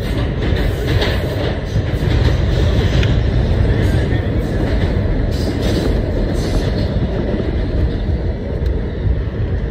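An R211A New York City subway train running through a tunnel, heard from inside the car: a steady, loud rumble of wheels on rail, with occasional clicks and rattles.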